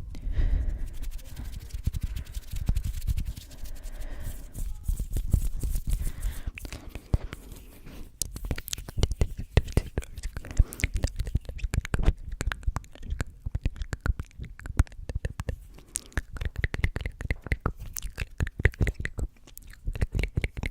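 Close-miked ASMR sounds: a fast run of crisp clicks and scratchy rustles, mixed with unintelligible whispering.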